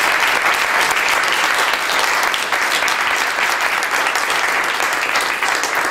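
Steady applause from a roomful of standing legislators clapping their hands.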